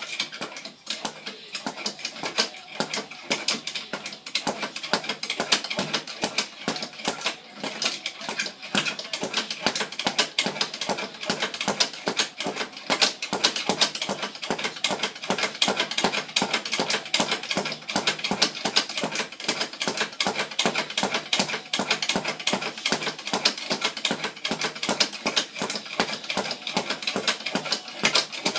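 A speed bag being punched in a fast, unbroken rhythm of many hits a second.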